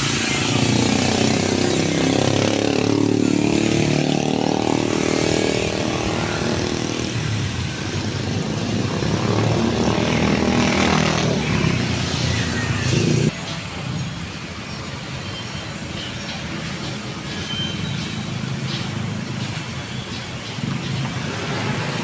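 Road traffic passing close by: motorcycles and cars driving past, their engines rising and falling in pitch as they go by. A little past halfway the sound drops suddenly to a quieter, steady traffic noise.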